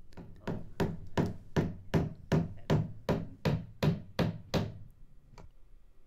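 A rubber mallet striking the handle of an awl, punching a vent hole through the wall of a plastic 5-gallon water container: a quick, even series of a dozen or so knocks, about three a second, then one lighter tap near the end.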